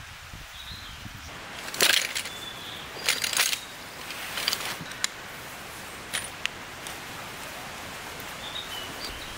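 Camp chair (Helinox Savanna) being unpacked and assembled: its fabric and stuff sack rustle in three short bursts, then the frame poles click together a few times. Faint bird chirps and a steady outdoor hiss sit underneath.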